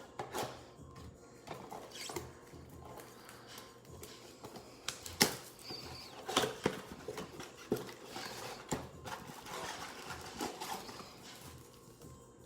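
Trading cards and card packaging being handled on a table: soft rustling with scattered light clicks and taps, and a few sharper knocks around the middle.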